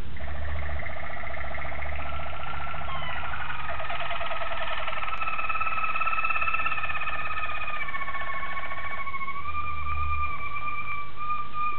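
Waterslager (Malinois) song canary singing: long held whistled notes that glide slightly in pitch, over a fast rolling trill that stops about nine seconds in, leaving the held note alone.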